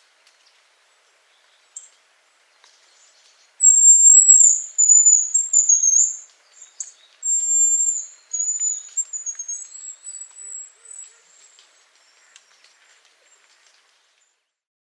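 Hazel grouse whistling its autumn song: two very high, thin whistled phrases of drawn-out notes stepping down in pitch. The first starts about four seconds in and the second about seven seconds in.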